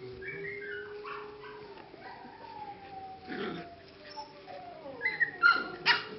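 English Cocker Spaniel puppies, six to seven weeks old, whining and yipping at play: long thin whines, some sliding down in pitch, then a few sharp, loud yips near the end.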